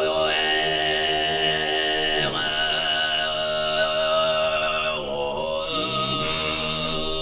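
Mongolian throat singing (khöömii): a steady low sung drone with a whistling overtone melody high above it, breaking off briefly about two seconds in and again around five seconds.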